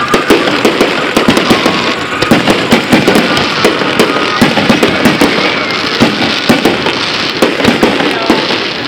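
Aerial firework shells bursting in quick succession, a dense, unbroken string of bangs and crackles.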